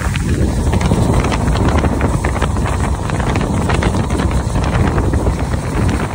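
Strong wind buffeting the phone's microphone: loud, continuous, gusty rumbling with no break.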